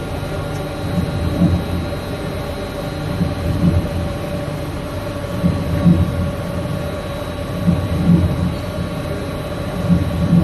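A steady mechanical hum of several tones over a low rumble, with pairs of low thumps repeating about every two seconds.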